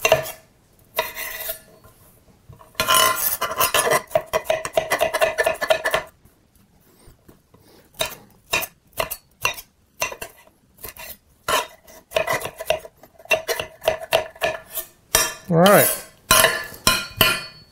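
Chef's knife chopping green bell pepper on a marble cutting board: sharp knocks of the blade against the stone in quick runs, with a pause of a couple of seconds about midway.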